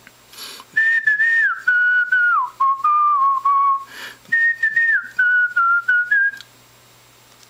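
A person whistling a short tune in two phrases, with a quick breath between them about halfway through. The second phrase starts like the first.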